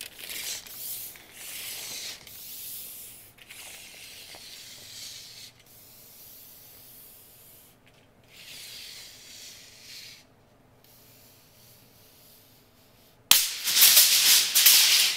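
Steel tape-measure blade of a Lufkin ShockForce 25-foot tape sliding out of its case and through the hand in a slow standout test: a hissing rasp in spells, with a much louder rasp over the last two seconds.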